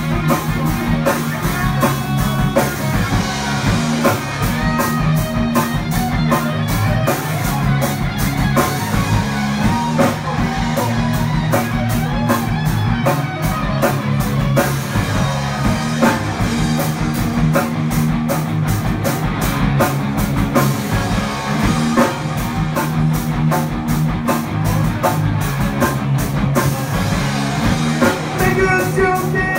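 Live rock band playing an instrumental stretch of a song: guitar and drum kit at a steady beat.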